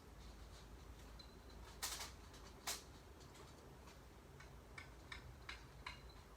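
Quiet room with a low steady hum, broken by two sharp clicks about two and three seconds in, then a run of lighter ticks and taps near the end.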